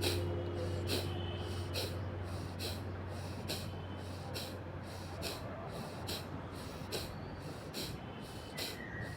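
Kapalbhati breathing: short, forceful exhalations through the nose at a steady pace of about one a second, each a brief sharp puff, over faint background music.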